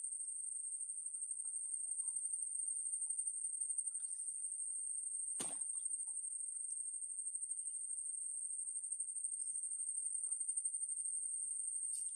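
Insects trilling in a steady, high, unbroken pitch, with one sharp click about five and a half seconds in.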